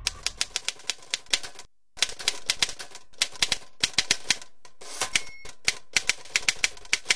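Manual typewriter keys striking the paper in quick, uneven runs of sharp clacks, with a short pause near two seconds and a brief ring about five seconds in.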